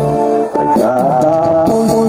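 A man singing a Bisaya-language song into a handheld microphone over a backing music track, his voice holding and bending long notes.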